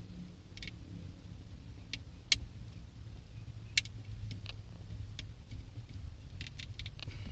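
Scattered small clicks and ticks from a knife blade prying at a plastic horn button in a steering wheel. Two sharper clicks come about two and a half and four seconds in, and a quick run of ticks near the end, over a faint low hum.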